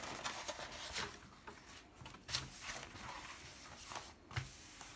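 Rustling and crinkling of a diamond painting canvas and its printed release paper as hands press it flat and lift its edge, with a few sharper crinkles among the softer rustle.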